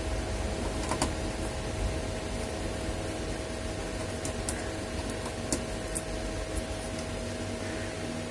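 Steady hum and hiss of an electric room fan, with a few scattered sharp little clicks of a screwdriver and small screws being handled on a plastic laptop base and desk.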